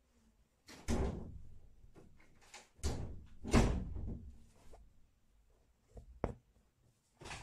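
Embroidery needle and thread pulled through fabric stretched taut in an embroidery hoop: a few scraping pulls with soft thumps on the drum-tight cloth, then a couple of short clicks near the end.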